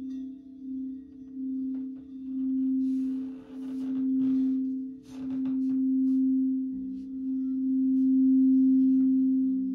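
Singing bowls sounding a sustained, ringing tone that swells and fades in slow pulses; a second, lower tone joins about seven seconds in.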